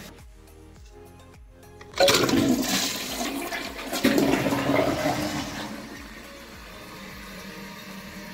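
WaterRidge two-piece dual-flush toilet being flushed in a test after installation: a sudden rush of water about two seconds in, a second surge about two seconds later, then draining away over a few seconds.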